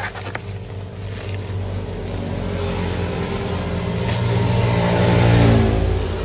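A car passing close by: its engine and tyre noise build up, peak, then drop in pitch as it goes past.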